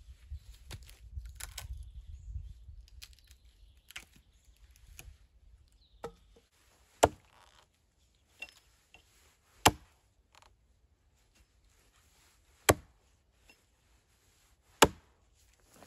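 A hatchet chopping into the end of a log: a few light taps first, then four sharp, heavy blows spaced two to three seconds apart.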